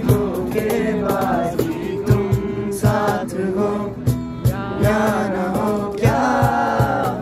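A group of people singing a song together in chorus, with a strummed acoustic guitar and a steady beat played by hand on a box drum (cajon).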